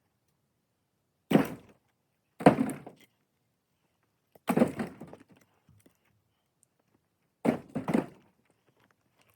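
Five sharp wooden thunks, irregularly spaced, the last two close together: knocks and blows on tamarack firewood.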